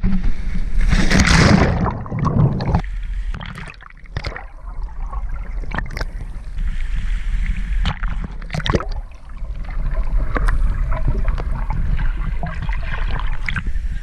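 Sea water sloshing and splashing over rocks, with wind rumbling on the microphone and scattered sharp splashes; the loudest rush of splashing comes about a second in.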